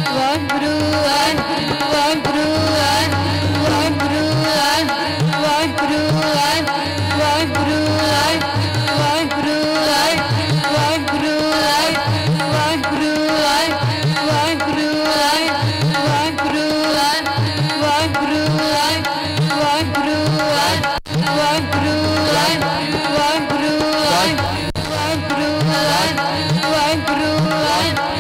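Harmonium playing a sustained melody over tabla accompaniment in a fast, steady rhythm; the low bayan strokes slide in pitch.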